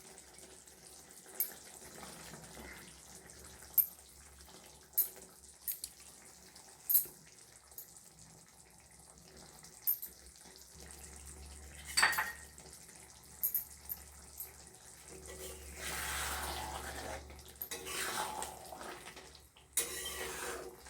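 Masala curry bubbling in a kadhai, with scattered sharp clinks of a spoon against the pan. Near the end there is a longer stretch of stirring and scraping as boiled eggs are mixed into the gravy.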